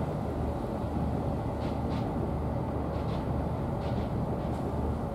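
Steady low rumble of outdoor background noise, with faint short high-pitched chirps about once a second.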